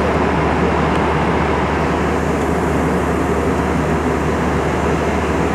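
Steady cabin noise of an airliner in flight: the even rush of engines and airflow, with a low hum beneath.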